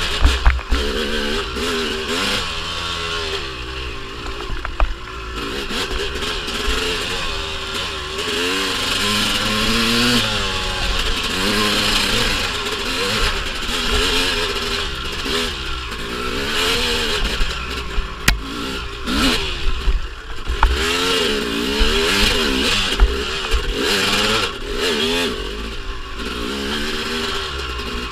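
1997 Honda CR250's single-cylinder two-stroke engine revving up and down while the dirt bike is ridden along a rough trail, its pitch rising and falling every second or two. Occasional sharp knocks and clatter sound over the engine.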